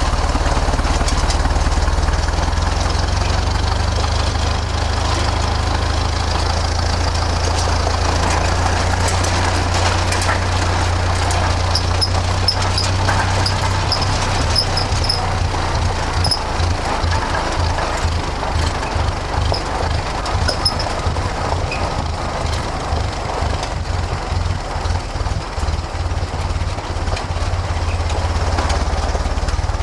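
1931 Ford Model A four-cylinder engine running as the car drives slowly at about 7 to 9 mph: a steady low rumble that turns choppier and more pulsing from about halfway through.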